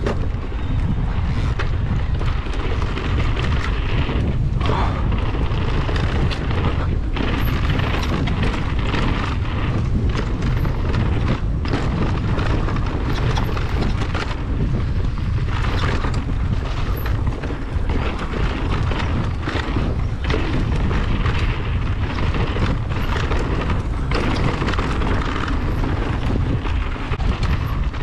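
Mountain bike descent heard through a bike- or rider-mounted camera: wind buffeting the microphone as a steady deep rumble, with the rattle and repeated knocks of the bike over rough trail. It comes in suddenly at the start and stays loud throughout.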